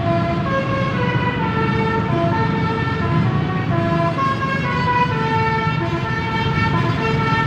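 Basuri telolet horn on an Indonesian tour bus playing a tune: a run of clear horn notes stepping up and down in pitch, a few notes a second, over a low steady rumble.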